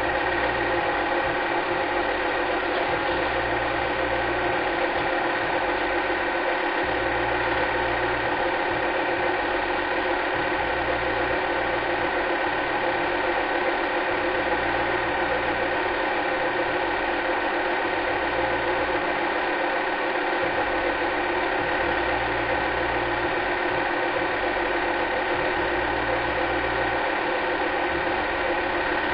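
A machine running steadily, with many unchanging tones and a low throb that comes and goes about every two and a half seconds.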